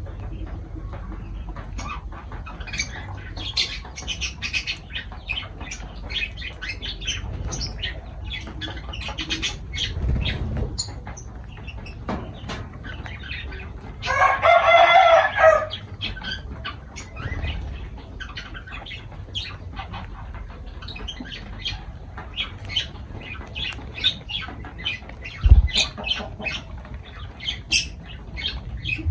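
Lovebirds chattering in a run of rapid short, high chirps. About halfway through comes one louder, harsher call lasting a second or so, and about three quarters in there is a single thump.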